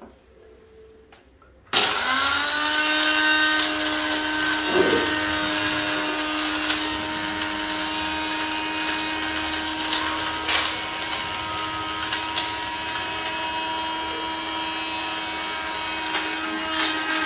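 Small electric blender grinding dried eggshells. The motor starts about two seconds in, spins up quickly and runs with a steady whine, with scattered knocks from inside the jar.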